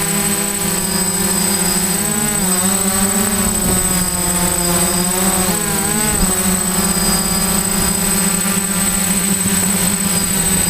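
DJI F550 hexacopter's six brushless motors and propellers droning in flight, the pitch dipping and rising briefly three times as the throttle changes, over a thin steady high whine.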